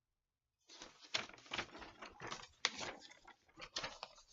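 Paper or plastic being handled, rustling and crinkling with sharp crackles, starting about half a second in.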